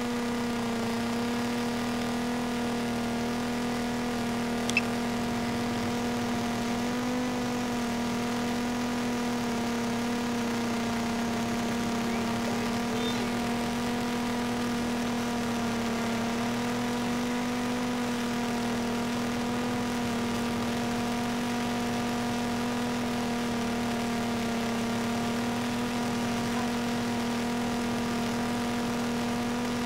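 DJI Mavic Pro quadcopter hovering, its propellers making a steady bee-like buzzing hum whose pitch wavers slightly. A single short click about five seconds in.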